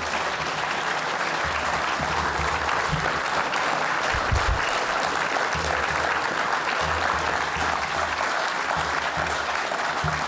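A large audience clapping steadily and continuously, sustained applause at the end of a speech.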